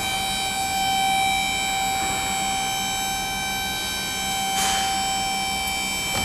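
Toppy MAXI PH ADV WB pallet changer running as it tilts a loaded pallet over, a steady high whine with a short hiss about four and a half seconds in.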